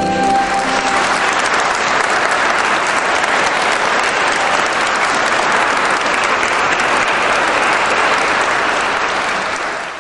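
Concert audience applauding steadily, with the choir's last sung chord dying away in the first moment. The clapping fades out at the very end.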